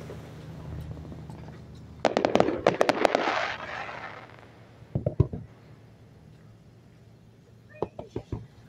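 Aerial fireworks: a rapid cluster of crackling bangs about two seconds in, fading out over the next two seconds. A few heavier booms follow around five seconds, then a handful of smaller pops near the end.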